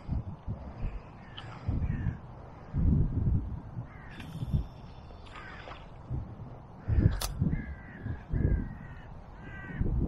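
Crows cawing in short, repeated calls, with a quick run of about five caws near the end. Gusts of wind rumble on the head-mounted microphone, and there is a single sharp click about seven seconds in.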